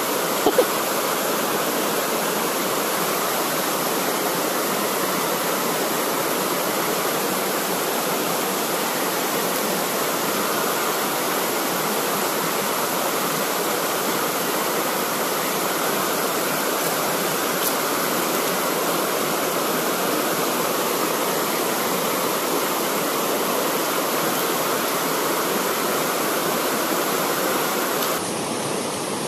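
Mountain river rushing over rocks: a steady, even rush of water. A couple of sharp clicks sound about half a second in.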